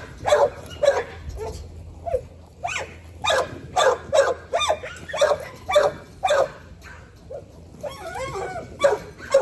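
Pit bull puppy barking excitedly at a flirt-pole lure, short sharp barks about two a second with brief pauses, and a wavering whine a little before the end.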